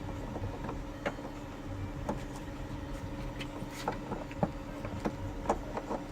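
Vehicle engine idling steadily, with irregular sharp clicks and taps over it.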